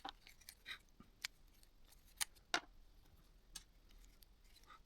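A few sparse, sharp plastic clicks as a Nokia N95's frame is pried loose from its snap-fit clips.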